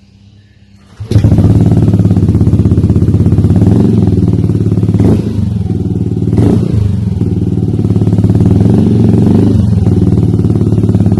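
Yamaha Aerox scooter's single-cylinder engine running loud and steady through a Triton Neuro carbon-Kevlar aftermarket exhaust, coming in suddenly about a second in, with a couple of brief dips in the engine note near the middle.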